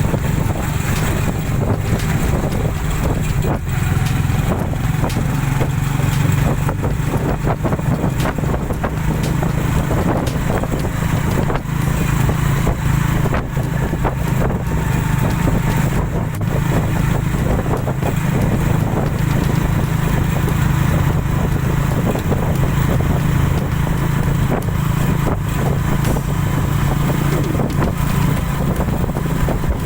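Steady drone of a vehicle engine running at an even pace, with wind noise on the microphone and small irregular knocks and rattles over it.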